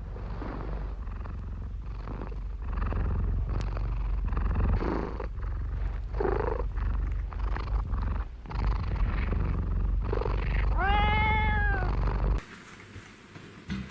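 An animal's steady low rumble, with a short pitched call about six seconds in and one longer rising-and-falling call near the end.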